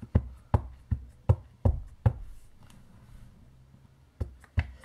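Clear stamp on an acrylic block being tapped onto a Memento ink pad to ink it: about six quick knocks in the first two seconds, a pause, then two more near the end.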